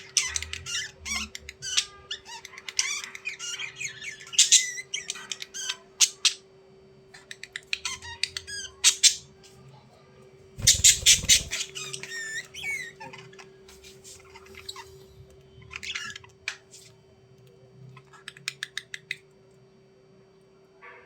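Budgerigars chattering and squawking in bursts of high chirps, warbles and quick rattling trills. The loudest burst comes about halfway through, with a low thud under it, over a steady low hum.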